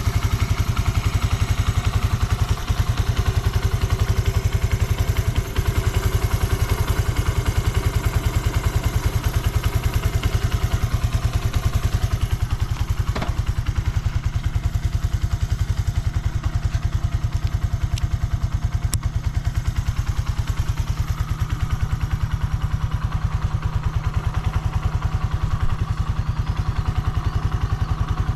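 Suzuki GN125H's single-cylinder four-stroke engine idling steadily with an even beat, sounding free of abnormal noises.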